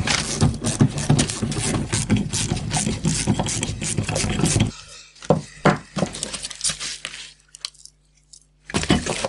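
Ratchet wrench clicking rapidly as it spins out an 11 mm screw, stopping suddenly about halfway through. A few metallic knocks follow as the freed brake proportioning valve and its steel mounting plate are handled and the ratchet is set down.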